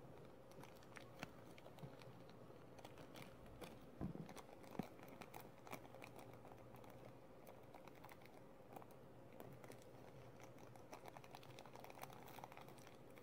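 Faint crinkling and light clicks of a thin clear plastic bag being handled by fingers, with a couple of slightly louder ticks about four seconds in, over a faint steady hum.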